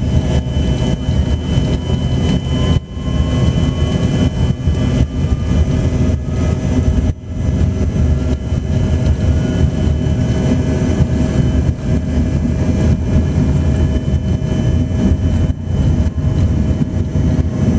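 Jet airliner engines heard from inside the cabin on the ground at takeoff: a loud steady rumble with a steady whine, and a fainter whine rising in pitch over the first several seconds.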